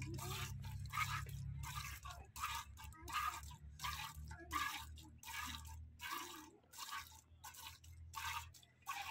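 Milk squirting by hand from a cow's teats into a steel pail, short hissing streams in a steady rhythm of about two a second. A low hum runs underneath and stops shortly before the end.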